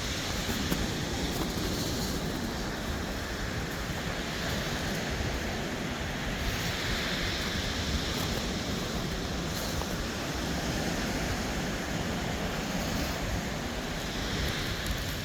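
Small surf breaking and washing onto a sandy beach, surging every few seconds, with wind rumbling on the microphone.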